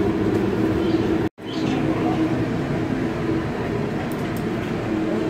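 Steady indoor ambience of a crowded attraction queue: a low rumble with a steady hum. It cuts out completely for a moment just over a second in.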